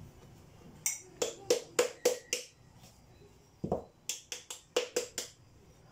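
A measuring jug tapped again and again against the rim of a mixing bowl to knock the last flour out: about a dozen short, sharp taps in two runs, with a pause near the middle.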